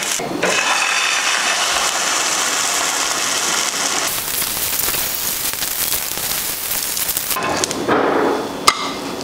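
Vegetables sizzling steadily in a hot nonstick frying pan. About four seconds in, the sizzle brightens as rehydrated freeze-dried egg is poured over them. Near the end the sizzle drops back and a spatula scrapes under the omelet, with one sharp click.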